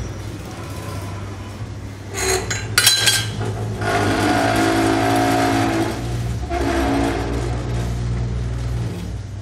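Rim-straightening machine running with a steady low motor hum as it turns a bent 14-inch steel wheel rim. A few sharp metallic knocks ring out about two to three seconds in, then from about four seconds a louder grinding with a held whine as the rim rolls against the pressing roller.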